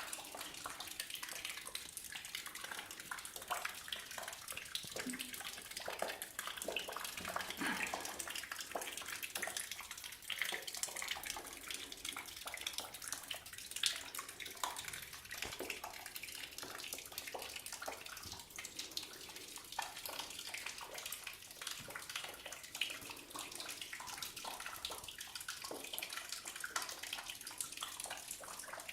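Water running and splashing steadily, full of irregular spatters and drips.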